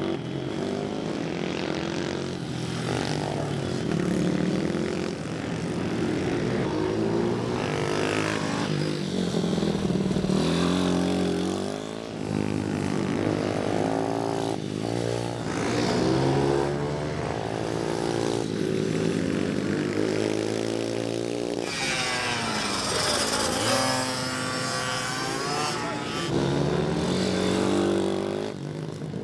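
Small pit bike and pocket bike engines revving up and down as the riders accelerate out of corners and pass by. The pitch rises and drops over and over, with a higher-pitched engine whine about 22 seconds in.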